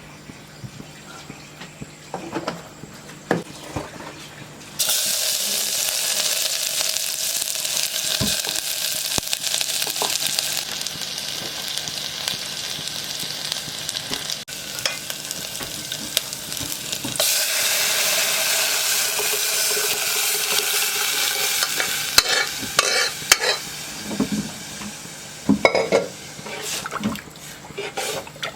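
Food sizzling in hot oil in a pan, the hiss starting suddenly about five seconds in as something goes into the oil, easing off and then swelling again. Toward the end the sizzle dies down and a utensil clicks and knocks against the pan as the food is stirred.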